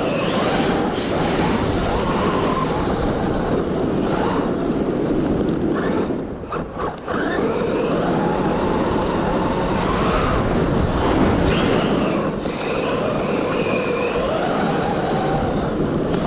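ARRMA Talion 6S RC car's brushless motor whining up and down with the throttle, over the noise of its tyres on loose dirt. It eases off briefly about six seconds in.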